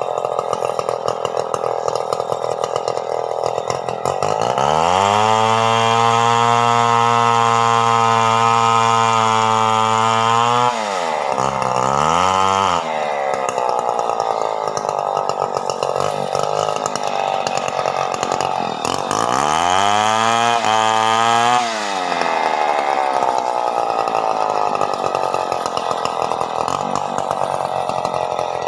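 Stihl 070 two-stroke chainsaw running, revved to high speed for about six seconds starting about five seconds in. It drops back with a short blip, then is revved up again briefly about twenty seconds in before falling back.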